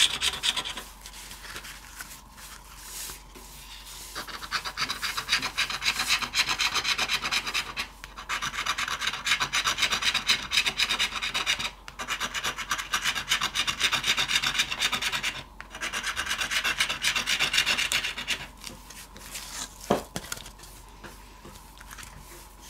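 Scratching the coating off a $50 scratch-off lottery ticket: rapid back-and-forth scraping strokes in bursts of a few seconds, with short pauses between them.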